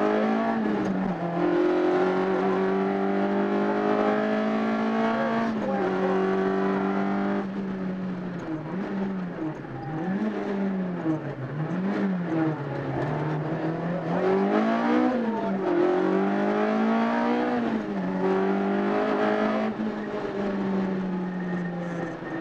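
Engine of a Peugeot 206 rally car heard from inside the cabin at stage speed. It is held at steady high revs for long stretches, with several quick rises and falls in the middle as the driver lifts off and gets back on the throttle through bends.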